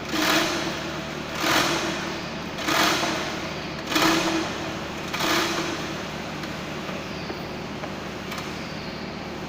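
Hand-operated crane hoist worked in strokes while lifting a lathe: six rasping mechanical strokes about a second apart, each with a ringing tone, stopping about six seconds in.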